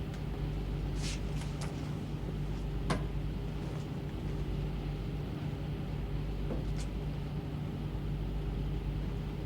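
Steady low mechanical drone of a warship's machinery, with a few faint clicks in the first two seconds and a sharper knock about three seconds in.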